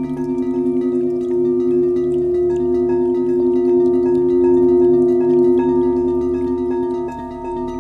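Several singing bowls ringing together in long sustained tones at a few overlapping pitches, pulsing with a slow wavering beat.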